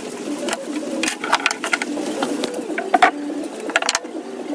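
Small pieces of cut wood being handled and set down on a wooden workbench, making irregular sharp clicks and knocks, over a continuous low wavering drone.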